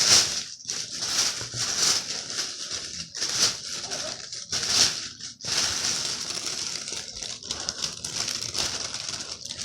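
A food wrapper crinkling and rustling in irregular bursts as it is handled.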